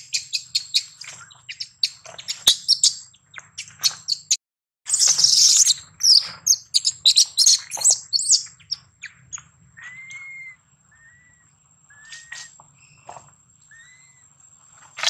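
Small birds chirping: a run of quick chirps, a louder burst of twittering in the middle, then a few short, separate whistled notes.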